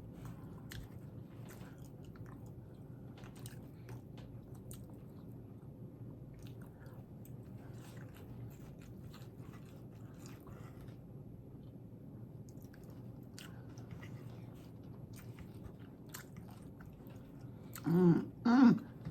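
Close-up mouth sounds of someone eating crispy tostadas: soft, irregular crunches and wet clicks of chewing. Near the end come two short, loud voiced hums.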